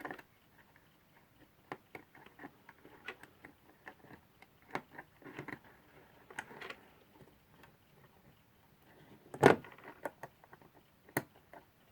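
Scattered light clicks and taps of small metal alarm-clock movement parts being handled and fitted between the plates, with a sharper knock about three-quarters of the way in.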